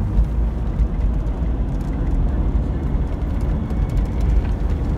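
Steady low rumble of a car driving along at road speed, heard from inside the cabin: engine and tyre noise.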